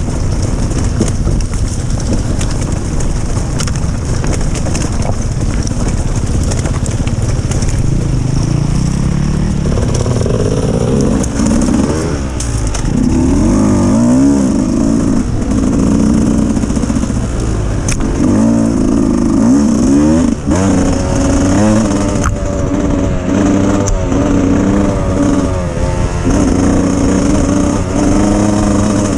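Dirt bike engine revving, its pitch rising and falling over and over as the throttle is worked. Before the revving starts, about a third of the way in, there is a loud low rumble.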